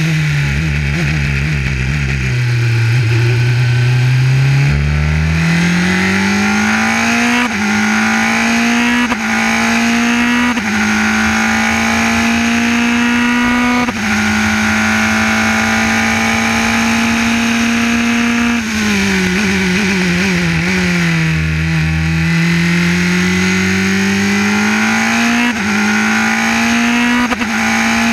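Formula 3 race car engine heard from the cockpit at racing speed: the pitch falls in steps as it downshifts under braking, then climbs with quick upshifts and holds high revs along a straight. About two-thirds in it drops through a second set of downshifts, then accelerates again with upshifts near the end.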